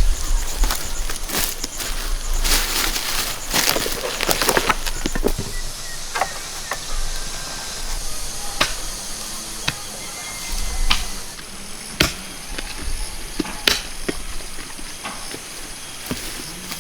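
Scattered sharp knocks and clicks with rustling, heaviest in the first few seconds, and a low rumble that swells briefly near the start and again about eleven seconds in.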